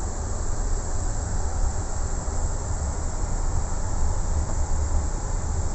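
Steady cockpit noise in a Boeing 777-200 under tow: an uneven low rumble from the airframe rolling and shaking, under an even hiss, with the APU running.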